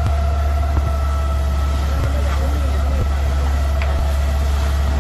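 Fire truck engine running steadily at constant speed, with a steady whine above it. Faint voices in the background.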